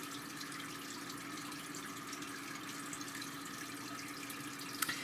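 Steady background room noise: an even hiss with a constant low hum, and a couple of faint clicks near the end.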